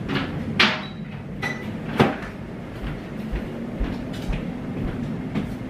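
Kitchen knocks from the refrigerator: a clattering knock with a short ringing clink about half a second in, and a sharper knock about two seconds in, like the fridge door and items on it being handled and shut, over a steady low hum.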